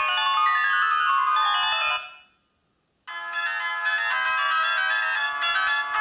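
Panasonic KX-TF200 phone playing its built-in ringtone previews. One melody fades out about two seconds in, and after about a second of silence the next ringtone in the list starts.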